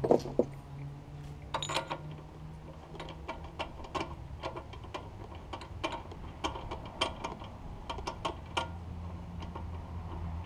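Ratchet wrench clicking in short, irregular runs as the spark plug is screwed back into a small four-stroke boat engine, with a few louder knocks in the first two seconds.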